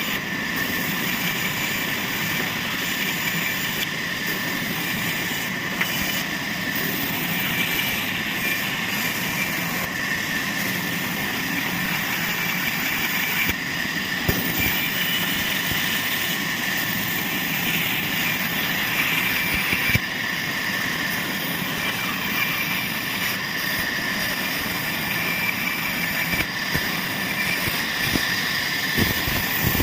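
Sawmill machinery running steadily, with a constant high whine and a few brief knocks.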